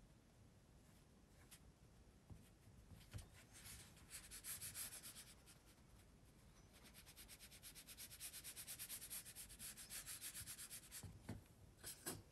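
Faint scratchy rubbing of a watercolour brush dabbing on watercolour paper, in two runs of quick strokes, the longer one at about six strokes a second. Near the end, a couple of light taps as the brush picks up paint from a palette pan.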